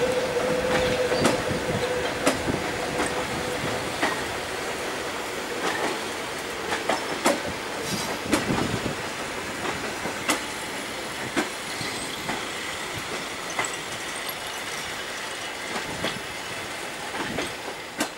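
Carriages of an ED4M electric train rolling slowly on shunting moves, wheels clacking irregularly over rail joints. A thin steady wheel squeal fades out about three seconds in, and the whole sound slowly grows fainter.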